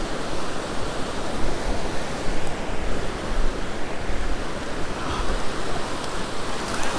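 Surf breaking and washing up a sandy beach as a steady rush, with gusts of wind rumbling on the microphone.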